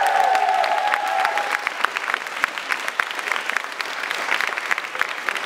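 Audience applauding. The clapping thins out and gets quieter after the first couple of seconds.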